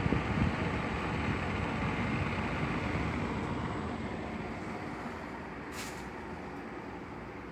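Blower motor and fan of a Panasonic ceiling-concealed ducted air-conditioner indoor unit running with a steady droning, resonant noise, the abnormal noise the owner is recording. It grows gradually quieter, with a short hiss about six seconds in.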